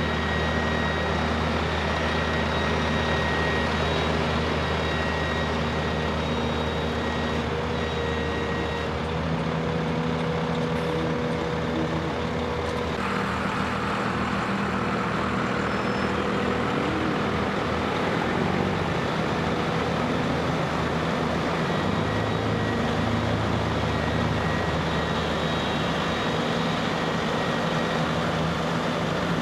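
Diesel engines of heavy-haul super-load rigs running as they pull slowly along a street: Caterpillar diesels in the Peterbilt tractor and in the trailer's powered booster unit. The engine pitch shifts up and down as they work under load.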